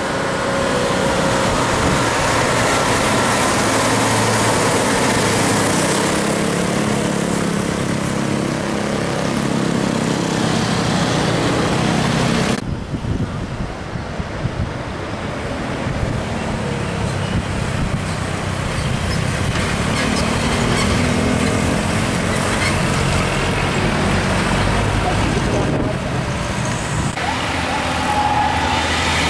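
Diesel engines of loaded dump trucks (Hino and Mitsubishi Fuso) passing one after another, running under load amid road traffic noise. The sound drops and changes abruptly about thirteen seconds in, and again near the end.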